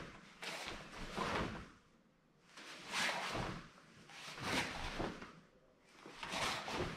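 Swishing and rustling of a sai kata in motion, as the heavy cotton gi and the metal sai sweep through each technique. There are about five swells, one every second or two, each rising and fading within about a second.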